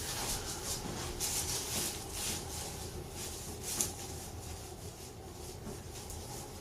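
Soft rustling and handling sounds of a patient being worked on by hand on a chiropractic table, with a few light knocks, one a little louder near the four-second mark, over a low steady room hum.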